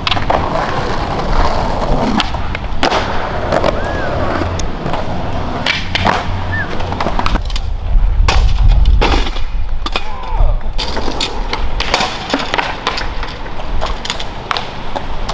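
Skateboard wheels rolling over concrete with a steady low rumble, broken by repeated sharp clacks and pops of the board hitting the ground and the skate obstacles. The rolling is loudest a little past the middle.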